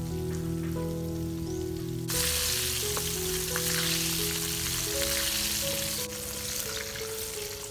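Hot oil sizzling around a whole fish deep-frying in a wok, much louder from about two seconds in until about six seconds in, starting and stopping abruptly. Background music with a slow melody plays throughout.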